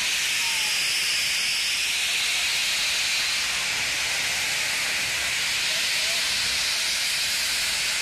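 LNER Peppercorn A1 Pacific steam locomotive Tornado pulling away, with a steady loud hiss of steam from its open cylinder drain cocks.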